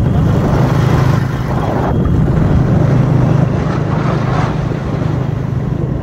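Steady engine hum with rushing wind and road noise, heard from a vehicle moving along a highway.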